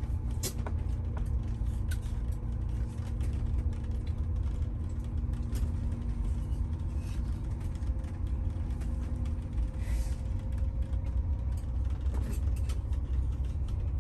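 Tiffin Allegro Bus motorhome driving slowly over a packed-sand beach road, heard from inside the cab: a steady low rumble with small rattles and clicks.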